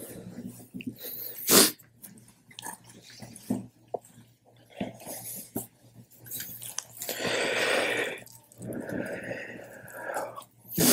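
Scattered small clicks and rustles, with a sharp knock about one and a half seconds in. A short hiss comes near the middle, and a brief high whine follows near the end.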